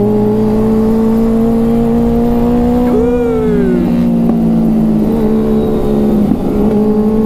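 Motorcycle engine running at a steady cruising note as the bike rides through traffic. About three seconds in, a brief pitched sound rises and falls, and shortly after five seconds the engine note drops slightly.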